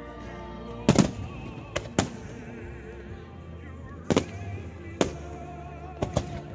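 Aerial firework shells bursting: about eight sharp bangs, a close pair about a second in, more around two, four, five and six seconds, over music with a singing voice.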